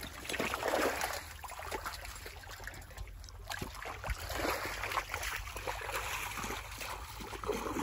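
Shallow flowing water rushing and splashing around a tractor's tyres, in uneven surges, with some sloshing as water is scooped for washing.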